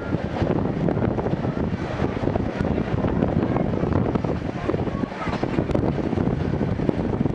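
Old passenger coach running along the track behind a steam locomotive: a steady rumble with many small clicks and rattles from the wheels and car body, with wind noise on the microphone.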